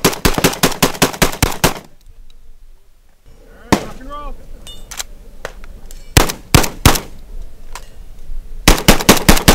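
FosTech Origin-12 semi-automatic 12-gauge shotgun fired rapidly: a fast string of about a dozen shots, a few single shots in the middle, and another quick string near the end.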